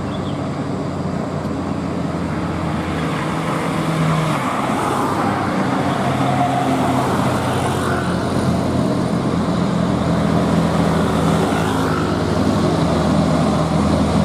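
Truck engine running steadily, its pitch dropping about four seconds in and rising again near the end, with road traffic noise.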